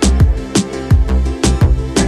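Background music with a steady beat: kick drum and hi-hat strikes over sustained keyboard-like notes.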